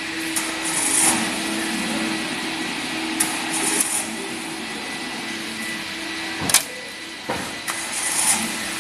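A handful of sharp plastic clicks and snaps from a car smart key fob being handled and opened by hand, the loudest two about six and a half and seven seconds in, over a steady engine-like hum.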